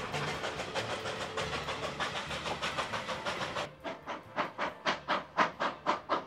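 A narrow-gauge steam train running, heard from aboard as a dense, fast, even beat. About three and a half seconds in, this gives way to the sharp exhaust chuffs of the K-36 steam locomotive No. 480 working, about three or four beats a second.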